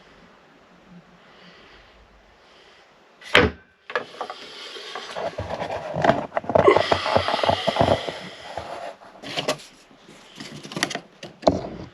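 A sharp knock, then several seconds of irregular clattering and scraping, with a few more knocks near the end: wood and tools being handled and set down on a bench.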